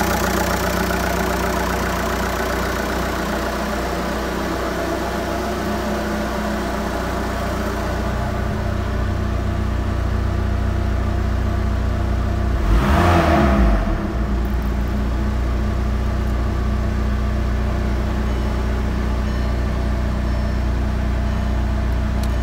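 A 2006 VW Golf TDI's 1.9-litre BEW four-cylinder turbodiesel idling steadily at a little under 1000 rpm. About halfway through it gets one short blip of the throttle that rises and settles back to idle.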